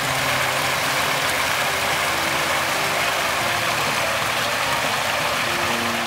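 Steady rush of a small mountain stream cascading over mossy rocks, loud and even, with faint background music beneath.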